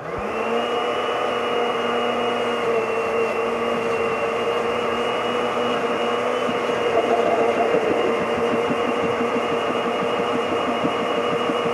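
Electric blender motor spinning up at once and running at a steady speed, puréeing fried onion, ají amarillo peppers and milk into a thick sauce.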